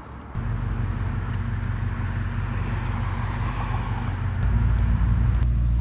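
Pickup truck driving: steady engine sound and road noise heard from inside the cab. About four seconds in, the low engine sound grows louder.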